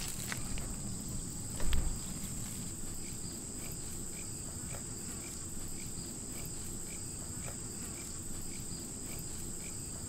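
Steady high-pitched insect chorus in the open air, with a short chirp repeating about twice a second. There is a single soft low thump a little under two seconds in.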